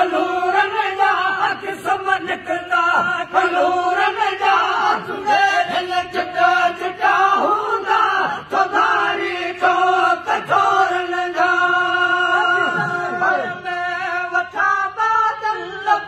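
Men chanting a Sindhi song together in long, held notes.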